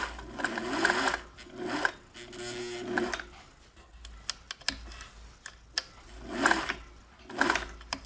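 Singer 401A vintage sewing machine stitching in several short runs, its motor speeding up and slowing down, with light clicks between runs and two brief spurts near the end.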